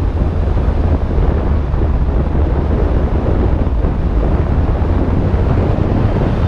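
Turbocharged B13 Nissan Sentra's GA16DET 1.6-litre four-cylinder engine and exhaust running steadily at a gentle cruise, under heavy wind noise on the microphone. The engine still runs the stock ECU tune and injectors, so it is not being pushed.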